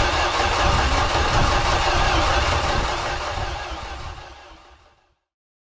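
A boat engine cranking on its starter motor and trying to fire without catching into a steady run. The sound fades out near the end.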